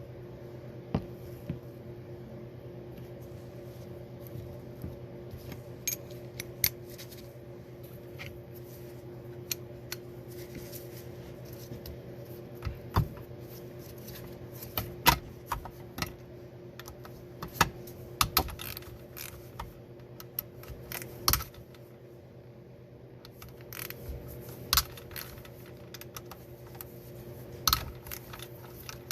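Metal parts of a Honda manual-transmission gear selector clinking and tapping as they are handled and fitted together: irregular sharp clicks, a few at a time, with gaps between.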